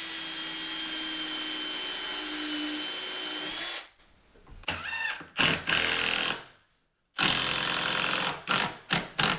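Power drill driving a screw through a wooden door jamb into the framing, running steadily for nearly four seconds, its whine rising slightly just before it stops. After that come shorter, irregular bursts of tool and handling noise.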